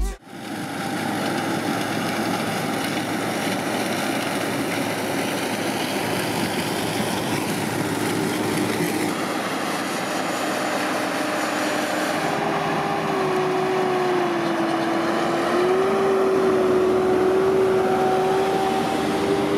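Diesel engines of harvest machinery running steadily, changing with two cuts about 9 and 12 seconds in: a Claas Lexion 570 Terra-Trac combine harvester at work, then a Fendt tractor with its trailer, its engine note wavering slightly.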